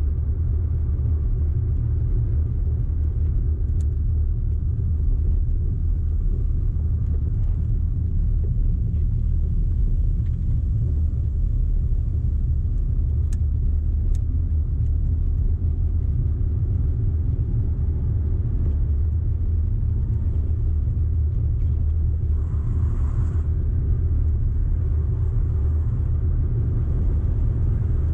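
Audi car being driven, with a steady low rumble of engine and road noise.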